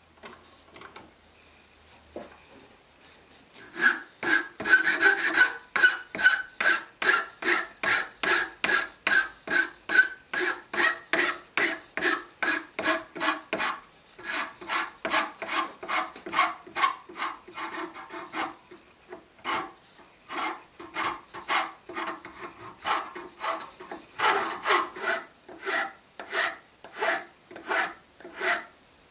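Round file rasping on the sawn edges of a small wooden cut-out clamped in a bench vise, smoothing it. It goes in quick, regular strokes, about two a second, beginning a few seconds in, with a couple of brief pauses.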